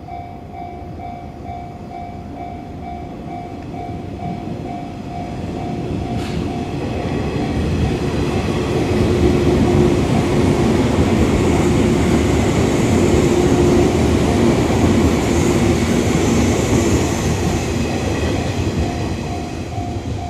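An electric train passing over a Japanese level crossing: the rumble and wheel clatter build to a peak over several seconds and then fade as it goes by. The crossing's warning bell dings in a quick, even repeat at the start, is drowned out while the train is loudest, and is heard again near the end.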